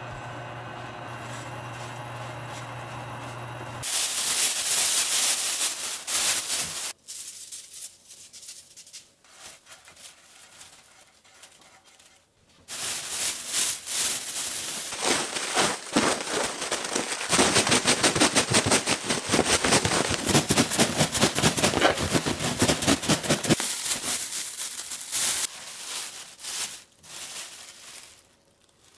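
A thin plastic bag crinkling and rattling as toasted bread-crust cubes are shaken inside it with sugar to coat them, in a fast, steady shaking rhythm over the second half. It opens on a steady low hum, with a burst of bag crinkling a few seconds in.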